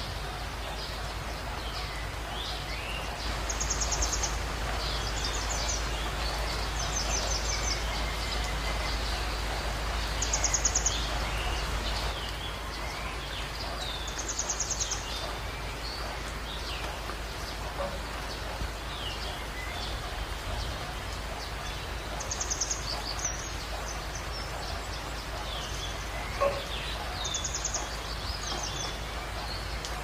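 Steady hiss of heavy rain with wild birds calling over it: short, rapid, high-pitched trills every few seconds and scattered chirps. A single sharp tap near the end.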